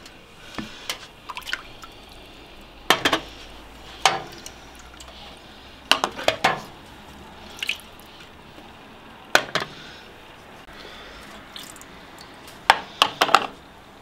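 Glass canning jars being lifted out of a hot water bath and set down on a metal tray once processing is done: a string of sharp clinks and knocks, about eight, some in quick pairs, with water dripping off the jars.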